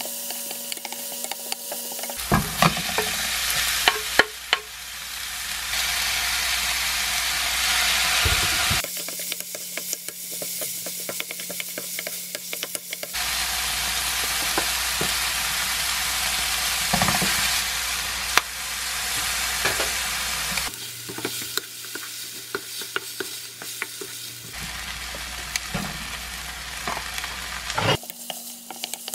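Diced onion and carrot, then sliced squid, sizzling in a frying pan as they are stirred and scraped around with a spatula. The sizzle changes abruptly between short spliced takes and is loudest about six to eight seconds in.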